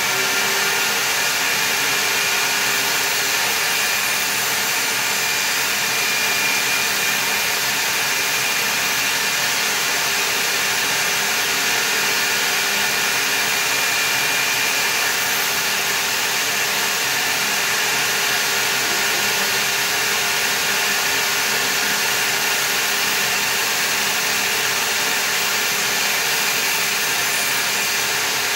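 Portable table saw running loud and steady while a wooden aileron is fed through the tilted blade, ripping a bevel along its edge.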